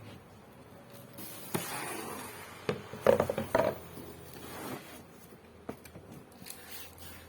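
A plastic chair being handled, with rubbing and scraping and a few hard knocks, the loudest a quick cluster of knocks and rattles about three seconds in.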